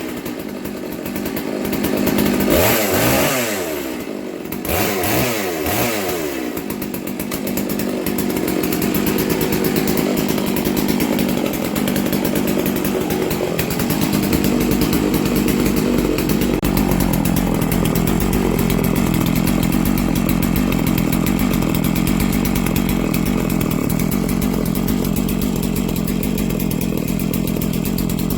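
Farmertech G660 two-stroke chainsaw on its very first run, its engine revved up and down several times in quick blips over the first six seconds, then running steadily.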